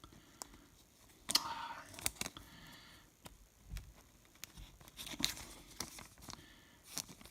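Foil baseball card pack wrapper crinkling and being torn open, with light clicks and taps of cards being handled.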